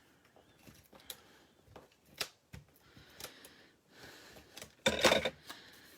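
Scattered light clicks and paper handling, then a short rasping scrape about five seconds in: a tape-runner adhesive (Stampin' Seal) being run across the back of a paper heart.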